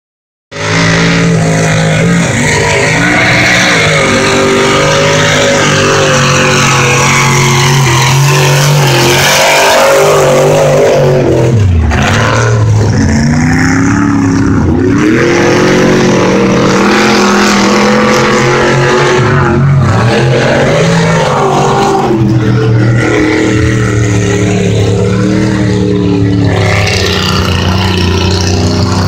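A large engine runs loudly close by, its revs dropping and climbing again several times.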